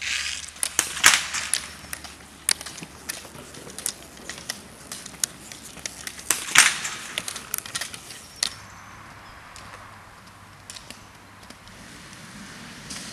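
Roller-ski pole tips striking and scraping asphalt in irregular clicks over a light hiss of roller-ski wheels, with two louder strikes about a second in and in the middle; the clicks turn sparser and fainter after about eight seconds.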